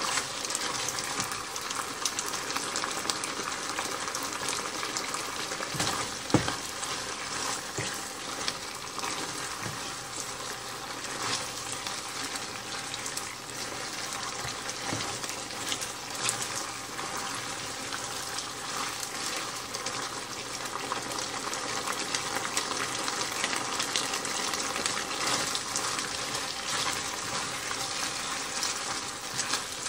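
Chicken in a thickening honey-garlic sauce sizzling and simmering in a skillet on high heat. A spoon scrapes and ticks against the pan now and then, with one sharper knock about six seconds in.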